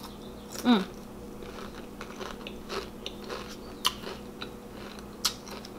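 A Pringles potato crisp being chewed with the mouth closed: scattered small crunches, with a brief falling hummed "mm" about a second in. A faint steady hum sits underneath.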